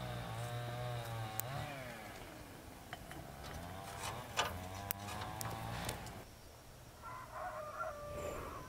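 A rooster crowing; the call ends about two seconds in, and a second crow follows, with a further bird call near the end. Sharp crackles from kindling burning in a metal wood stove break in here and there.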